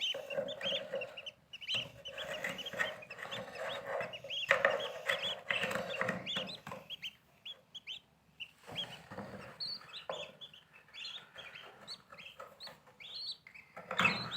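Birds calling in a dense run of short, repeated calls, thinning out about halfway through before picking up again near the end.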